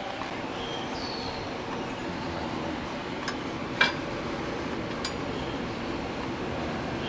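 Hand tools and loose metal parts clinking a few times during tractor dash disassembly, with the sharpest clink about four seconds in, over a steady background hiss.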